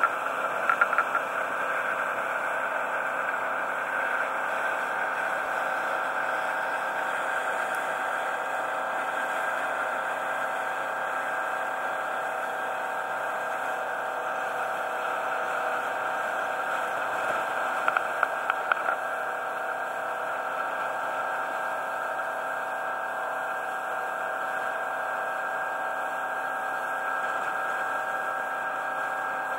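Boat engine running steadily under way, a constant drone with the rush of the moving boat. A few brief knocks about a second in and again around eighteen seconds in.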